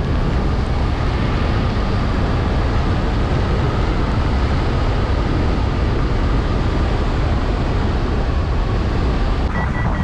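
Wind rushing hard over the microphone of a hang glider flying fast with speed pulled on. The noise is loud and steady, with a faint steady tone beneath it.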